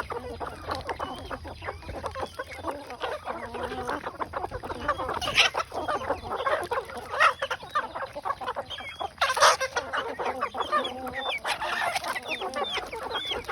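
Chickens clucking, many short calls overlapping one another, with a few louder calls standing out about five, seven and nine seconds in.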